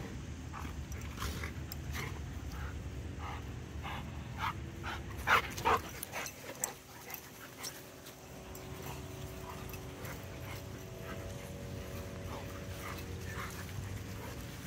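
Dogs at play, with a quick run of short, sharp yips bunched together about five to six seconds in.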